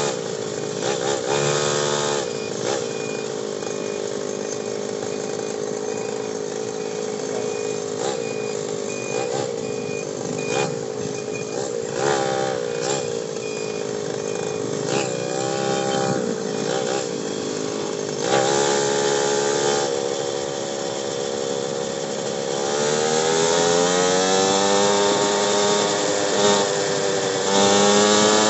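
Motorcycle engine heard from the bike while riding, its revs rising and falling with the throttle and climbing steadily near the end, with short knocks from bumps in the road. A faint high beep repeats evenly through the first half.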